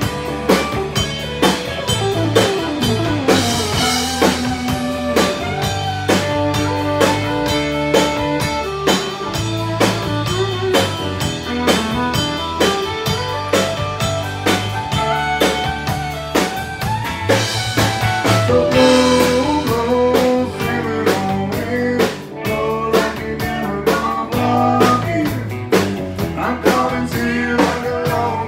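A live country band playing, with the fiddle carrying the melody over electric and acoustic guitars and a steady drum beat.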